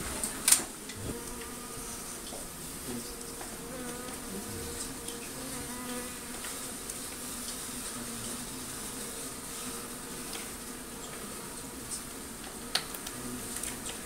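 Honey bees buzzing in a steady, wavering hum around comb being pulled from a ceiling cavity. Sharp clicks come about half a second in and near the end.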